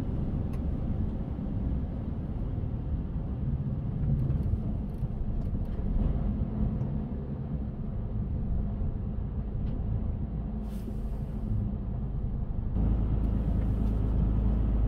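A lorry's diesel engine heard from inside the cab as the truck rolls slowly forward, a steady low rumble that gets louder about thirteen seconds in. A short hiss comes a little before that.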